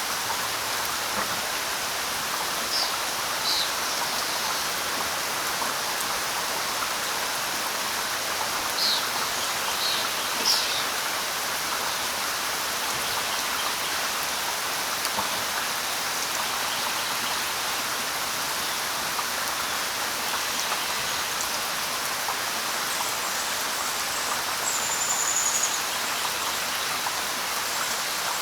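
Steady light rain falling on leaves, with a few short, high bird chirps scattered through it and one longer, higher bird call near the end.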